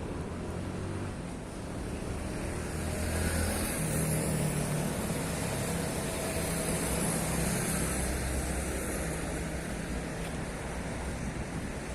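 Road traffic passing nearby, a steady rumble with the hiss of tyres swelling and fading as a vehicle goes by.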